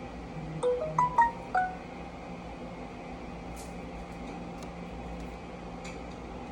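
A short chime of about five quick notes, first rising then falling, over a steady background hum; a few faint clicks follow.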